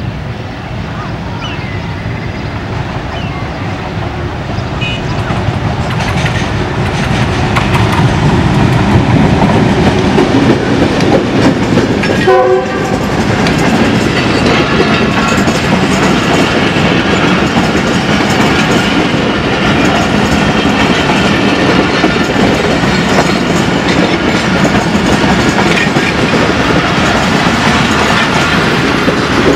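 Passenger express led by a GE U20 diesel-electric locomotive approaching and passing close by: the diesel grows louder over the first several seconds, and the horn sounds briefly about twelve seconds in. Then the coaches roll past with a steady clickety-clack of wheels over the rail joints.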